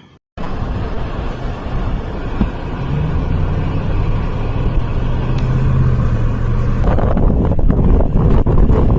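A motor vehicle's engine running with a steady low hum, under heavy rushing noise that turns rougher and gustier near the end.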